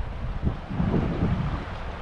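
Wind buffeting the microphone: an irregular low rumble with gusts swelling and fading.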